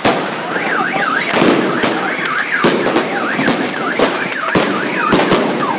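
Fireworks and firecrackers going off in a string of sharp bangs. From about a second in, a shrill tone swoops up and down over and over through the bangs.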